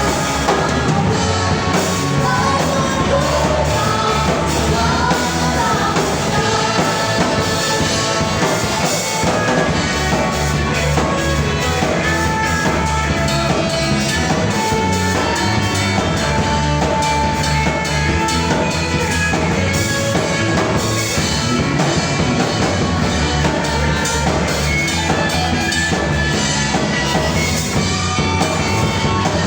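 A live band playing a rock-style song with a drum kit, with singing over it.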